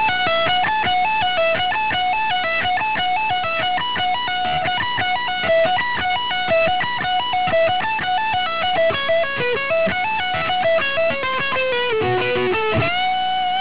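Electric guitar playing an F-sharp minor pentatonic sequence slowly, note by note, stepping up and down through a pattern. It resolves on a long held note with steady, even vibrato near the end.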